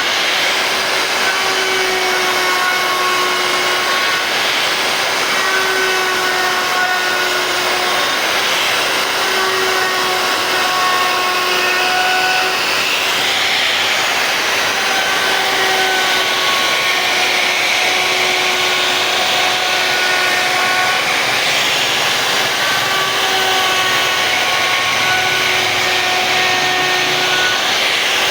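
CNC router spindle running at high speed with a steady whine, its bit cutting wood with a continuous rushing noise.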